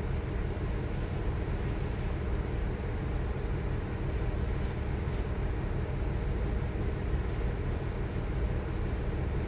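Cabin noise inside a 2022 NovaBus LFS HEV hybrid-electric transit bus: a steady low rumble with a few faint rattles, one about five seconds in.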